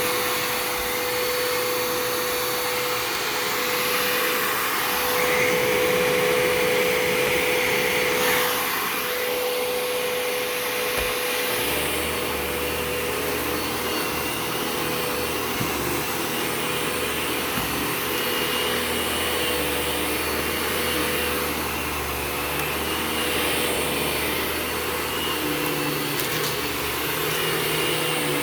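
Eureka TheBoss 4D upright vacuum cleaner running steadily as it vacuums the floor. A steady whine sounds in the first part, and about twelve seconds in the sound shifts, with a low hum joining for the rest.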